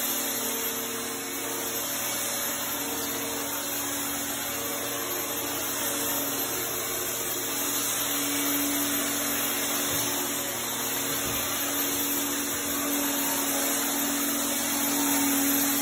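Genesis 2.6 HOCl atomizer, a handheld electric fogger, running steadily as it sprays a fine mist of electrolyzed salt water. It makes a vacuum-like whir with a low hum.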